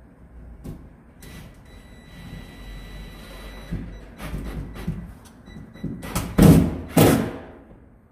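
Metal mounting bracket of a ceiling light being worked loose and handled: a faint steady high whine for a couple of seconds, scattered clicks and knocks, then two loud scraping rattles about six and seven seconds in.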